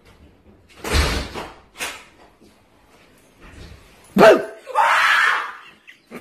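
A heavy thump about a second in and a lighter knock just after, then a person's sharp startled cry that falls in pitch, followed at once by a loud scream lasting most of a second.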